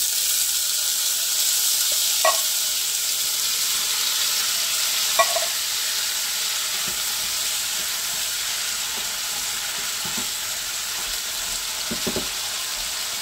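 Green beans frying in a pot of hot bacon fat just after being tipped in, with butter sizzling in a skillet beside it: a steady sizzle that eases off slowly, with a few light clinks.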